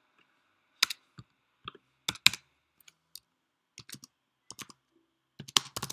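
Typing on a computer keyboard: single keystrokes at irregular intervals, then a quicker run of keys near the end.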